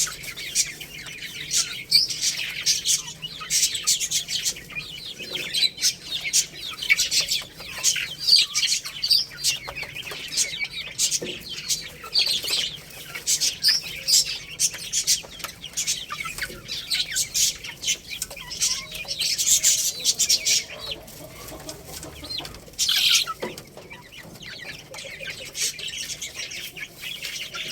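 Chicks chirping: many rapid, overlapping high-pitched peeps.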